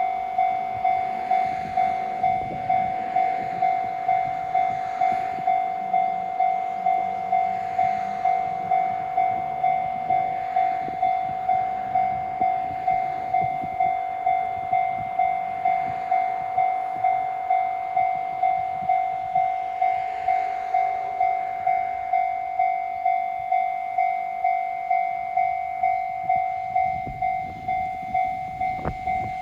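Japanese level-crossing warning bell ringing steadily at about one and a half dings a second. Underneath is the rumble and wheel clatter of a train running through the crossing.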